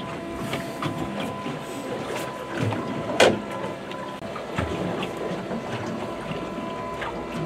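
Fishing boat at sea: wind and water noise with a faint steady hum. One sharp knock about three seconds in, with a few softer knocks around it.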